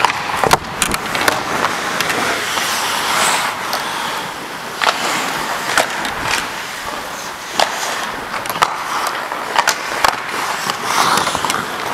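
Hockey skate blades scraping and carving on rink ice as the skater moves, a steady rushing noise. Scattered sharp clicks and knocks of sticks and puck on the ice run through it.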